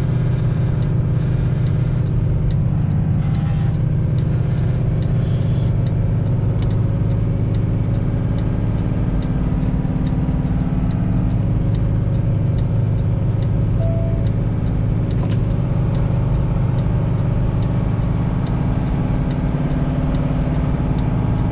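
A semi-truck's diesel engine drones steadily inside the cab under engine braking (Jake brake) on a downhill grade. The engine brake is not holding the truck's speed back.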